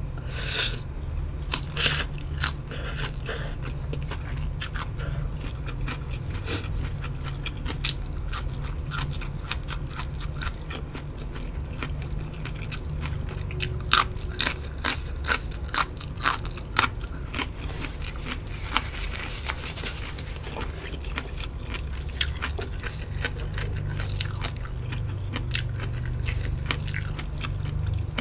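Close-miked eating: chewing with sharp crunches as crisp food is bitten, including a run of about a crunch every half second around the middle.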